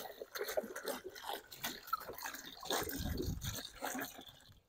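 Half a gallon of water being poured into a bucket, a faint, uneven splashing and trickling.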